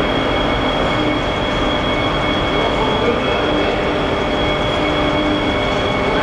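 Motorised handling machinery running steadily while a steel EMCAL supermodule is moved into its insertion tool: a continuous mechanical noise with a thin, steady high whine over it.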